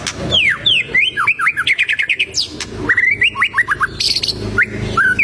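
White-rumped shama (murai batu) in full song: phrase after phrase of quick, sharply falling whistled notes and fast repeated runs, with a short pause about halfway through.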